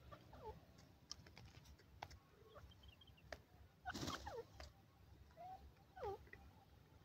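Grey francolin giving faint, short calls that slide down in pitch, a few times, with one short rising note. About four seconds in there is a brief rustling burst as the bird fluffs up its feathers, and light clicks are scattered through.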